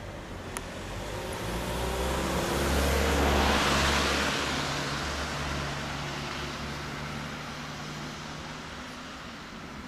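Small van driving past close by: engine and tyre noise swell to a peak about three to four seconds in, the pitch drops as it goes by, then fade away slowly.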